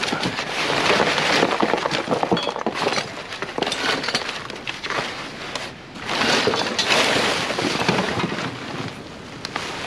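Scrap and construction debris in a dumpster clattering and clinking as it is dug through and wire is pulled out, with two louder spells.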